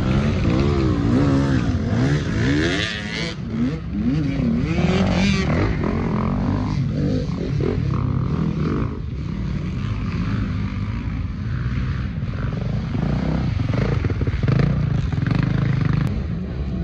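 Motorcycle engines revving, the pitch rising and falling repeatedly in the first few seconds, then running on at a steadier, rougher note.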